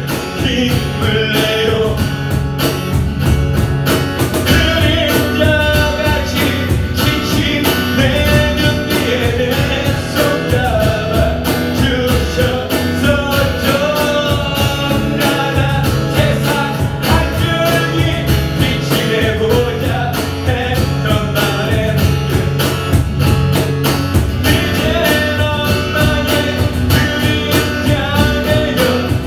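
Live slow song played on a steel-string acoustic guitar over a steady cajón beat, with a man singing at times.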